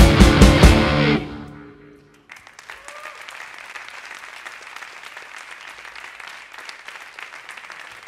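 Electric guitars, bass and drum kit of a rock band strike the final hits of a song, which ring out and stop about a second in. After a short pause, an audience applauds.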